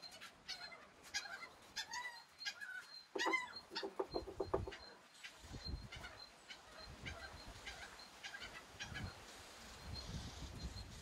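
Chickens clucking in short calls, loudest about three to five seconds in, with faint repeated high chirps from other birds.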